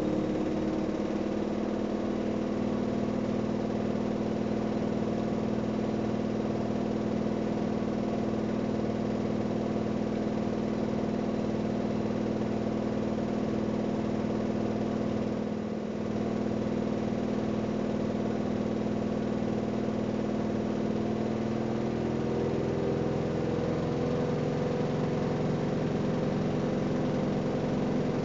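AEG Öko-Lavamat 693 washing machine running steadily at speed, a continuous motor and drum hum. About three-quarters of the way through, the hum rises in pitch as the machine speeds up.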